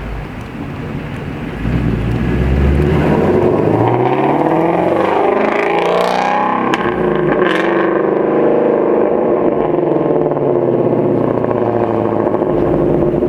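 2017 Shelby GT350's 5.2-litre flat-plane-crank V8 through its catless stock exhaust. The exhaust note jumps up about two seconds in and climbs in pitch under hard acceleration, then holds loud and steady at high revs before easing near the end.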